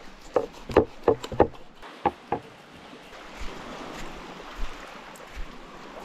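About seven sharp knocks and crunches in the first two and a half seconds, then small waves washing steadily on a pebble shore.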